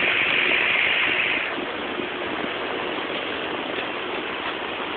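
Vintage Manning Bowman electric box fan running, a steady rush of air from its blades; about a second and a half in the rush drops and then holds steady as the fan slows from high to medium speed.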